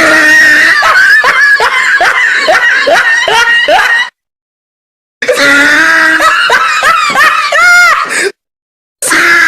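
Loud, high-pitched, voice-like squealing and shrieking in quick chirps that bend up and down in pitch, cut off abruptly twice by short stretches of dead silence.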